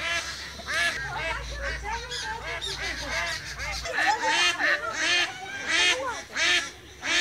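A flock of domestic ducks calling in a dense, overlapping chorus of rapid quacks and honks, with no pause in the calls. The flock is startled by a monkey swimming into its pond.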